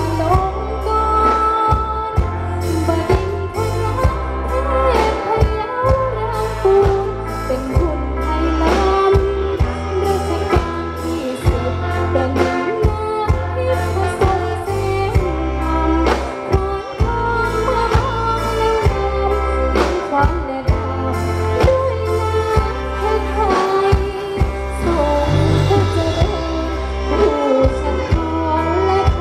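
Luk thung band playing through a PA system: a singer over a steady drum beat and bass.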